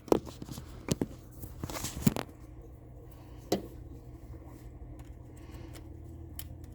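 A handful of sharp clicks and knocks from a plastic phone-charger cube being handled and pushed into a wall outlet. Most of them come in the first two seconds and one more comes about three and a half seconds in.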